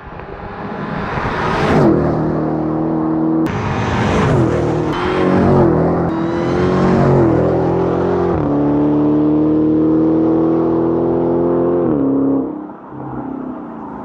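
Supercharged 6.2-litre Hemi V8 of a stock 2016 Dodge Challenger SRT Hellcat at full throttle on a standing half-mile run, its pitch climbing and then dropping sharply at each of several automatic upshifts. The sound builds over the first two seconds and falls away near the end.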